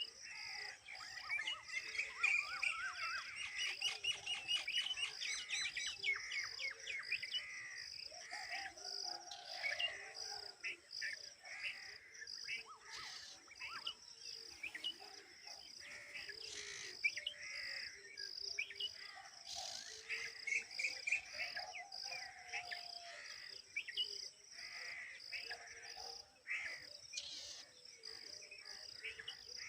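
Birds chirping and calling in many short overlapping notes, busiest in the first few seconds, over a steady, pulsing high-pitched insect trill.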